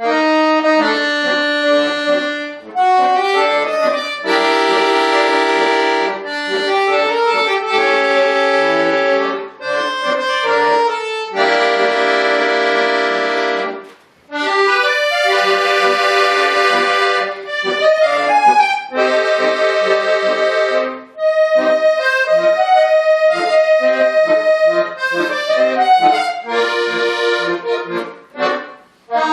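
Bayan (Russian button accordion) playing a solo piece: held chords and melodic runs in phrases, with short breaks between phrases, about halfway through and near the end.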